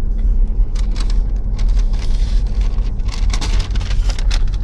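Road noise inside a moving car's cabin: a steady low rumble, with irregular rustling and crackling over it from about a second in.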